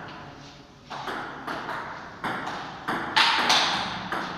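Table tennis rally: the ball clicks back and forth off the rubber-faced paddles and the STIGA table, about nine sharp hits in quick succession. The two loudest come about three seconds in. Each hit rings briefly in the room.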